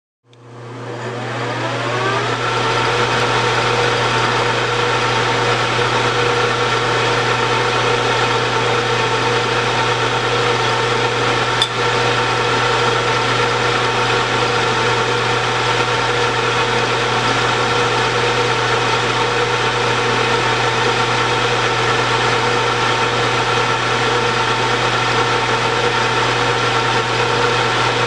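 Metal lathe running as it turns a bushing against a carbide-insert cutting tool. The motor spins up, rising in pitch over the first two seconds, then holds a steady hum. There is one short click about twelve seconds in.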